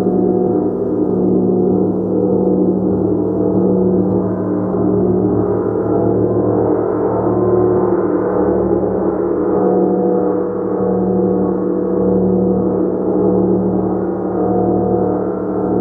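Gong played continuously, a loud sustained wash of many overlapping low tones that gently swells and ebbs, with no separate strikes standing out.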